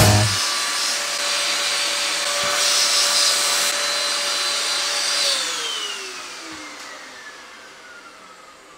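A small electric appliance motor with a rush of air runs steadily with a whine, then is switched off about five seconds in and winds down, its whine falling in pitch as the rush fades.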